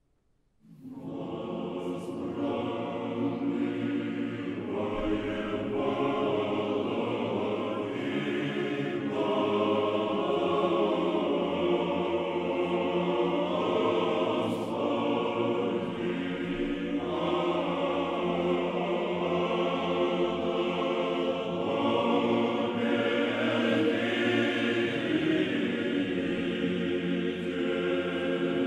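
Background music: a choir singing slow, long-held chords that change every few seconds, fading in about a second in.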